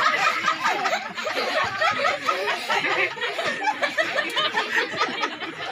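A small crowd laughing and chattering, many voices overlapping at once.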